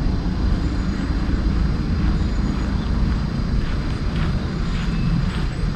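Golf cart driving along, a steady low rumble with a few faint rattles.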